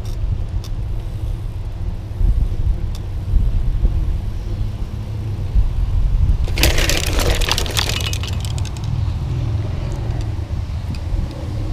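Low, steady rumble of a bicycle rolling along an asphalt path, with air buffeting the microphone. About six and a half seconds in comes a brief burst of rattling, clattering knocks.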